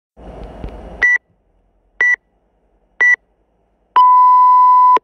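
Workout-timer app's start countdown: three short high beeps a second apart, then one long lower beep of about a second that signals go. A brief rustling noise comes before the first beep.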